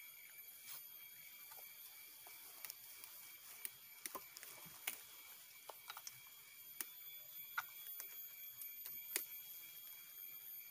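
Faint scattered clicks and knocks as a tapper climbs a sugar palm and works among its fronds, over a steady high-pitched whine.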